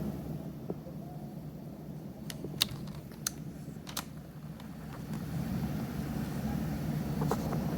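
Scottish Fold kitten snoring in its sleep: a low rumbling breath noise that fades a little, then swells again over the last few seconds, with a few faint small clicks around the middle.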